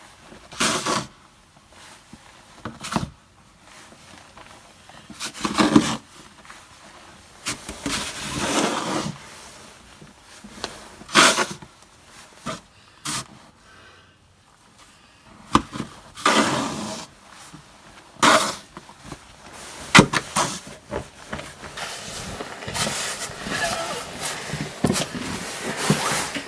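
Snow shovel scraping and scooping through deep snow in irregular strokes, with a few sharp knocks of the blade.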